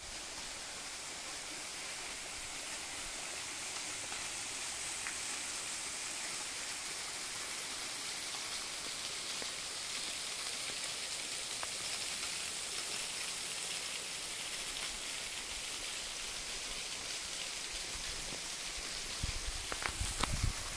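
Rushing water of a mountain river or waterfall, a steady, even hiss. A few low thumps near the end.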